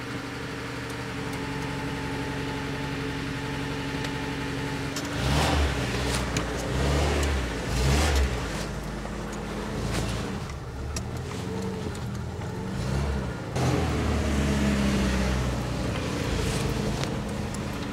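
Carbureted four-cylinder engine of a VAZ-2101 Zhiguli running just after a cold start on the choke, idling steadily at first. From about five seconds in it is louder and uneven, its pitch rising and falling.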